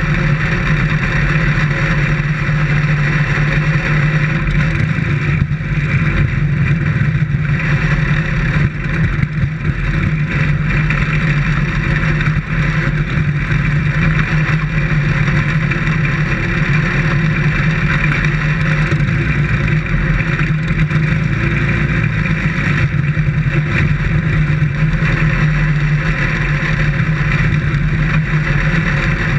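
Dirt-track race car's engine running hard at steady high revs, heard from inside the open cockpit, with a couple of brief dips about eight and twelve seconds in.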